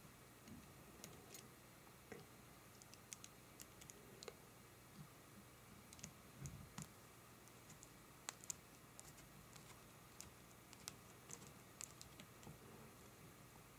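Faint, irregular small clicks and taps of small screws and steel mounting plates being handled and fitted by hand on a hard-drive stabilizer bracket.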